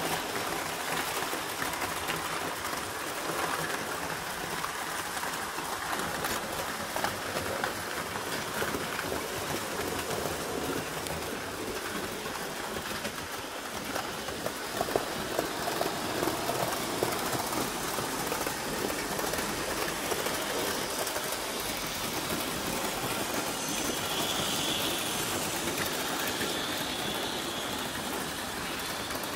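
HO-scale model train running on its layout track: a steady rushing hiss from the wheels on the rails, with a scatter of small clicks and a few louder ticks about halfway through.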